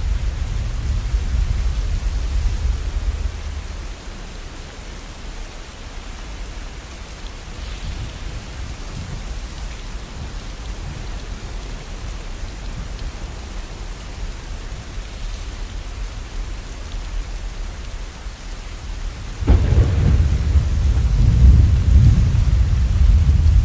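Steady rain with thunder: a deep rumble dies away in the first few seconds, and a sudden clap of thunder comes about three-quarters of the way through and keeps rumbling.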